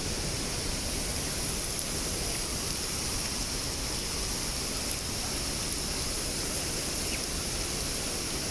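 Steady roar of a waterfall and its fast-flowing river, an even rush of water with a strong hiss.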